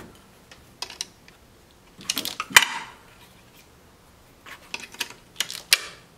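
Steel E10 E-Torx hand wrench clinking and scraping against the glow plug controller's bolts and bracket as it is fitted on and worked. A single click comes about a second in, a cluster of clinks follows about two seconds in and ends in one sharp clink, and another run of clicks comes near the end.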